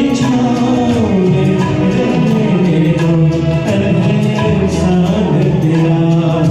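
Music from a cover of a Bollywood film song, with a melody of long, gliding held notes.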